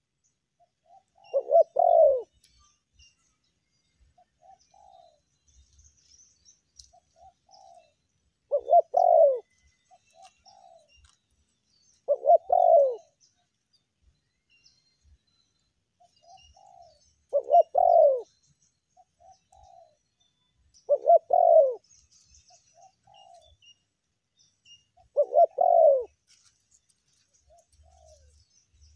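Spotted dove (tekukur) cooing: six loud coo phrases, one every three to four seconds, with softer short coos between them.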